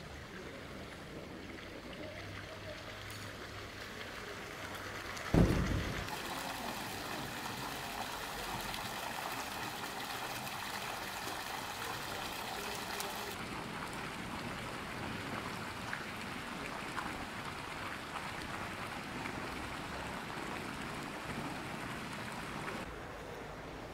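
Steady splashing of small fountain jets into a stone basin, starting just after a sharp low thump about five seconds in.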